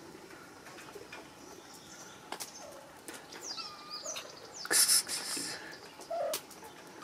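Birds chirping, with a few short gliding calls in the middle and a brief, loud rustling burst about five seconds in.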